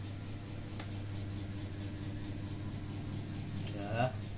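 Steady low hum of an electric fan running, with a brief vocal sound from a man near the end.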